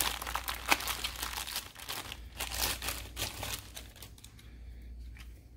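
Packaging crinkling as it is opened by hand: a dense run of crackles that dies away after about four seconds.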